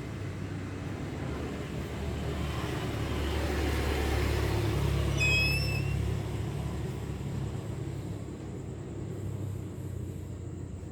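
A low rumble from a passing motor vehicle, swelling to its loudest about five seconds in and fading, with one brief high squeak at its peak.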